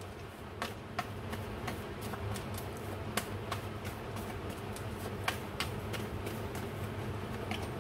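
A tarot deck being shuffled overhand in the hands: irregular light clicks and flicks of cards striking one another, over a low steady hum.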